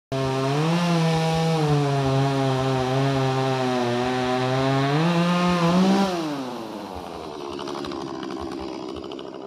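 Two-stroke chainsaw running at high revs while cutting firewood, its pitch sagging and rising. About six seconds in the revs drop away and the saw goes quieter.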